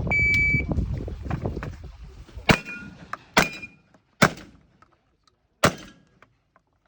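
A shot timer's start beep, then four shotgun shots spaced about a second apart, the last after a slightly longer gap.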